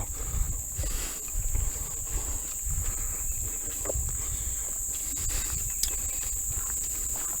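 Steady, high-pitched insect chorus, with irregular footsteps on a trail and low rumble underneath.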